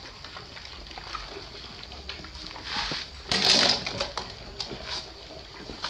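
Puppies eating wet food from shallow bowls: wet chewing and lapping with many small clicks. About three and a half seconds in there is a louder noisy burst lasting about half a second.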